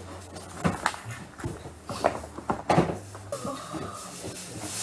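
Cloth dust bag and cardboard box being handled: a string of short rustles and light knocks.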